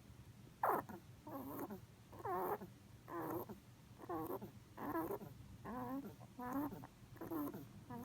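Pet rabbit snoring in its sleep: a short pitched snore with each breath, a little more than one a second.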